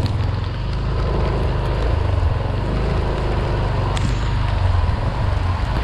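Wind and road noise from riding through heavy rain on a wet road: a steady low rumble of wind buffeting the action camera's microphone over the hiss of tyres on wet asphalt, with one sharp tap about four seconds in.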